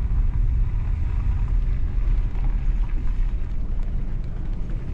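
Vehicle driving at low speed: a steady, low, noisy rumble.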